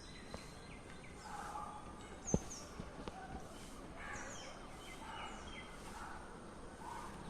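Faint bird calls: repeated short, high, falling chirps mixed with lower calls, and one sharp click about two and a half seconds in.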